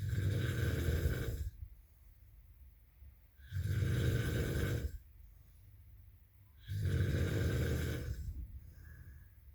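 Snoring of someone asleep: three long snores about three seconds apart, with much quieter breathing between them.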